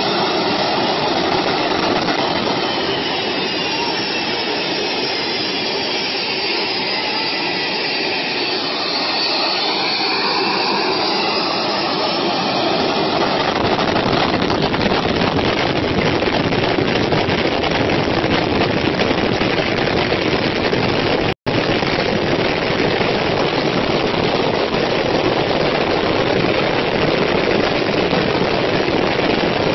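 Jet airliner engines at high thrust, blasting toward the beach from close behind the fence. A high turbine whine over the roar gives way, about halfway through, to a denser, louder roar of jet blast and blowing air. The sound cuts out for an instant about two-thirds in.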